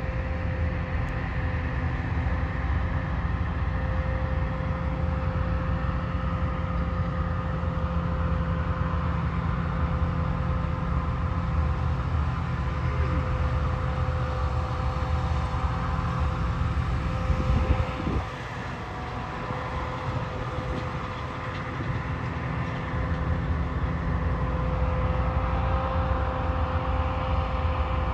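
Combine harvester running steadily, heard from inside the cab: a low drone with a steady whine over it. About eighteen seconds in it briefly goes quieter, then builds back up.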